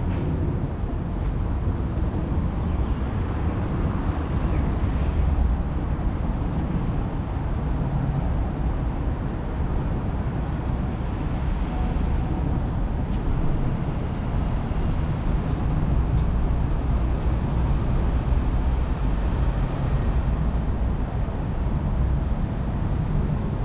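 Steady low rumble of outdoor city background noise, with wind buffeting the microphone in uneven swells.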